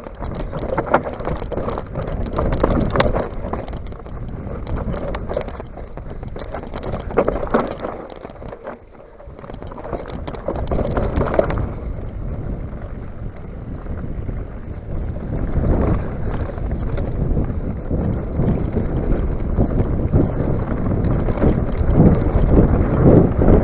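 Mountain bike descending a rough dirt and gravel singletrack: tyres crunching over the loose surface and the bike rattling over bumps with many short knocks. The bike goes briefly quieter about a third of the way in. Wind buffeting the microphone builds and grows louder toward the end.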